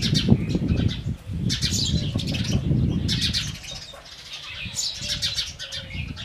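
House sparrows chirping in repeated bursts of quick, high calls. A loud low rumble runs under the first half and then fades.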